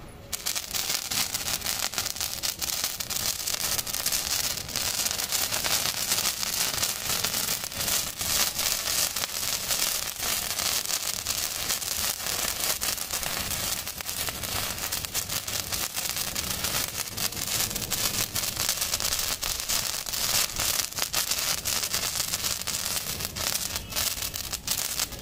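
Standard Fireworks 7 cm crackling sparkler catching just after the start and then burning with a dense, continuous crackle over a hiss.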